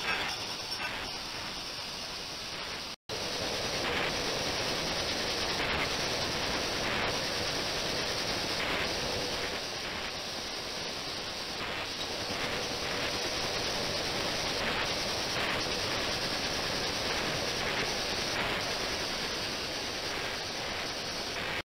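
Ultrasonic cleaning tank running, with cavitation in the water giving a steady hiss. It breaks off for an instant about three seconds in and resumes slightly louder, with a faint steady tone under the hiss.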